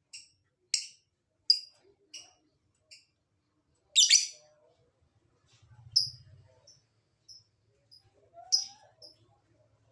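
Lovebird calling: a series of short, sharp, high chirps, spaced under a second apart, with a louder, harsher call about four seconds in and another near the end.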